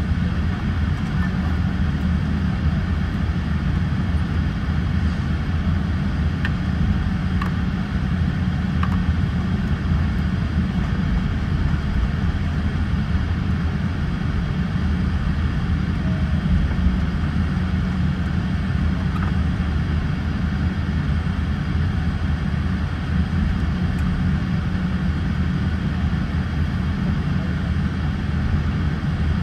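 Steady low rumble with an airy rush inside the cabin of a Boeing 787-8 airliner, with a few faint clicks.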